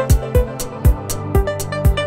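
Background music with a steady beat: a kick drum about twice a second, with crisp high percussion and pitched melodic notes.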